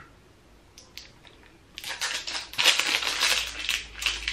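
Thin plastic seal on a spray bottle's cap being bitten and torn open: a few faint clicks, then about two seconds in a burst of crinkling and crackling plastic that runs for about two seconds.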